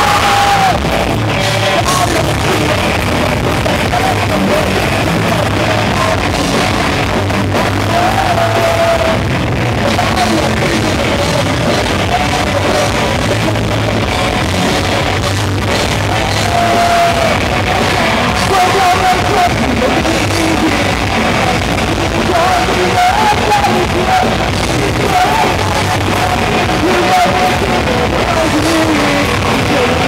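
Live rock band playing loudly: electric guitars and drums under a singer's vocals, the level steady throughout.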